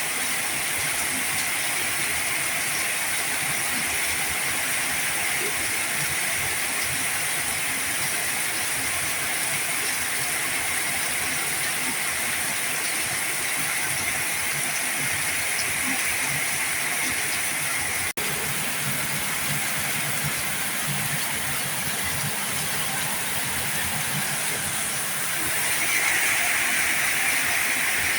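Heavy rain falling, a steady dense hiss of drops, swelling slightly near the end. The sound cuts out for a split second about two-thirds of the way through.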